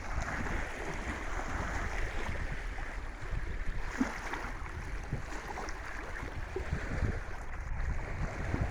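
Sea waves washing on the shore in a steady rush, with wind rumbling on the microphone.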